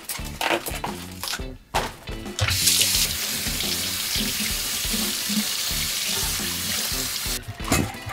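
Water running from a tap in a steady stream for about five seconds, starting a couple of seconds in and stopping near the end. A few light knocks and clatters come before it, with background music underneath.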